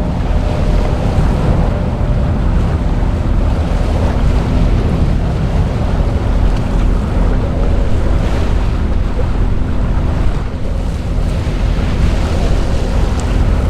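Wind buffeting the microphone on a moving cruise boat, over a steady engine hum and rushing water.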